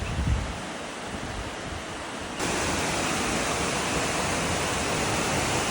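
Waterfall rushing in a steady roar of water that jumps suddenly louder and brighter about two and a half seconds in. A few low wind thumps hit the microphone near the start.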